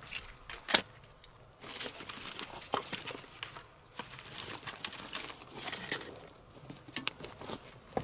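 Dry sticks and twigs being gathered by hand from stony ground: the wood clatters and knocks together, with rustling and crinkling as it is picked up and a sharp crack just under a second in.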